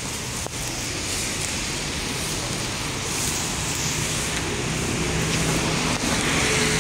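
Motor scooter engine running steadily, a low hum under a constant hiss of street noise.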